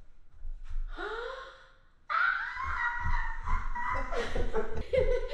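People gasping and then shrieking with excitement: a short rising gasp about a second in, then from about two seconds in a long, high-pitched excited cry, breaking into lower, choppier excited voices near the end.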